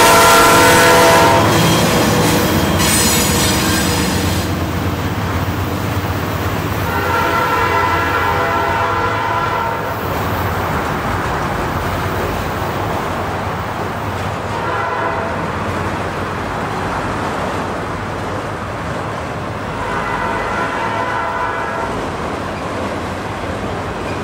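A Norfolk Southern freight train rolls past close by, its wheels and cars rumbling and clicking over the rail joints. The locomotive horn sounds long, long, short, long, the grade-crossing signal, growing fainter as the locomotives pull away.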